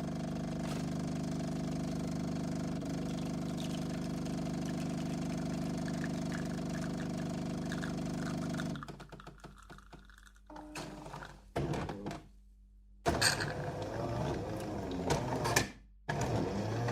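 Coffee machine motor running with a steady hum for about nine seconds, then cutting off suddenly; it is followed by a run of irregular clicks, knocks and short rattling bursts from the machine being worked.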